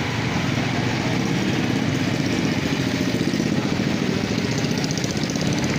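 Samosas deep-frying in a large wok of bubbling oil: a steady sizzle over a continuous low rumble with a fast flutter.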